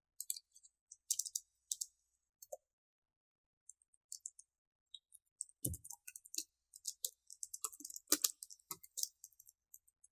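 Computer keyboard typing: a few scattered key clicks at first, then a quicker run of keystrokes in the second half.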